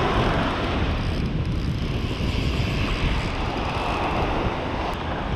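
Wind buffeting the microphone with a steady low rumble, over small surf waves washing up the beach.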